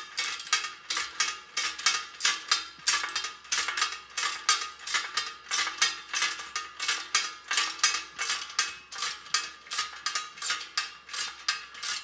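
Two socket ratchets, a 1/4-inch drive and a 3/8-inch drive, clicking in quick runs of about five clicks a second as a steel bolt and its nylon lock nut are ratcheted down.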